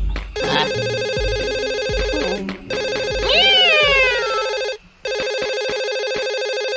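Cordless telephone ringing with a steady electronic ringtone, with a brief break a little before the end. A cat meows once about halfway through, rising then falling in pitch.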